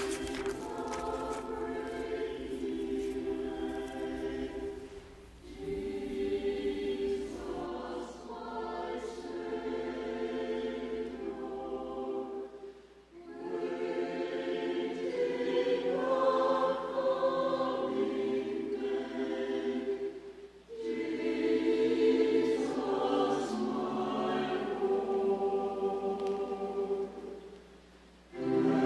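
A choir singing church music in long, held phrases, with short breaks between them.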